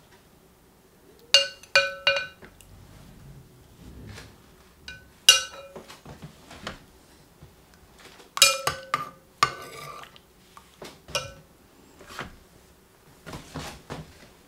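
A metal slotted spoon clinking against a white stock pot as cooked vegetables are lifted out, in several short clusters of sharp, ringing clinks. Softer rustles and taps near the end as the pieces are set down on paper towel.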